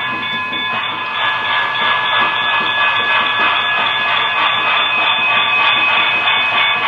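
Sound-equipped model steam locomotive giving a steady hissing train sound, with a few faint held tones in it.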